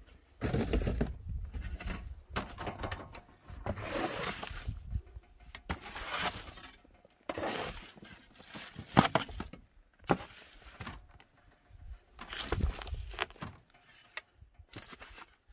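A long-handled hoe scraping and shoving food scraps, mostly carrot peelings, across rough wooden boards in irregular strokes. There is one sharp knock about nine seconds in, where the tool strikes wood.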